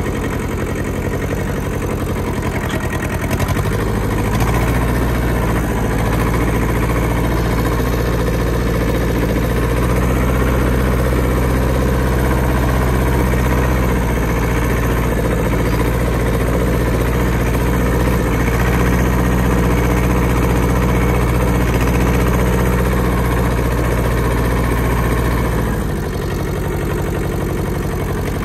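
Ford 1700 compact tractor's three-cylinder diesel engine running steadily under way, heard from the driver's seat. Its note rises a few seconds in and falls back near the end as the revs ease off.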